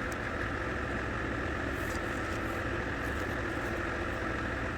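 Steady, even mechanical drone with no distinct events.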